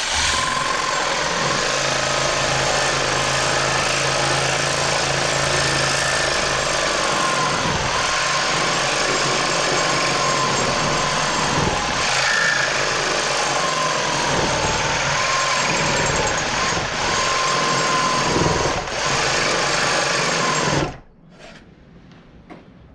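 Cordless reciprocating saw cutting a slot in a tractor pedal bush, the blade sawing steadily through the metal. It runs for about twenty seconds and stops suddenly.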